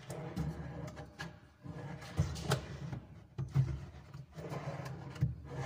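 Steel ball-bearing drawer slide being handled and positioned against a cabinet side: a series of irregular sharp metallic clicks and knocks over a low rumble.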